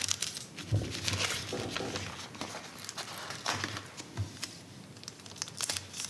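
Clear plastic cello bag crinkling as hands slide an enamel pin's backing card into it and press it flat, a run of irregular crackles.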